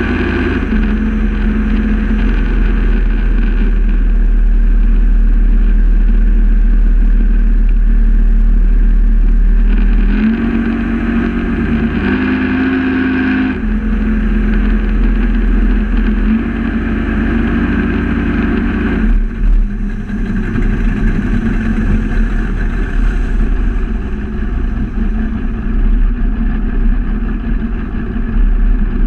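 Speedboat's inboard engine running under way at cruising speed, heard close under the engine hatch along with water rushing past the hull. The engine note shifts about ten seconds in and again a few seconds later, then eases off near the twenty-second mark, after which the sound is more uneven.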